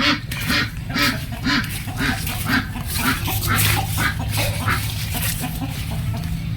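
Domestic waterfowl calling in a rapid series of short calls, about two a second, tailing off after about five seconds.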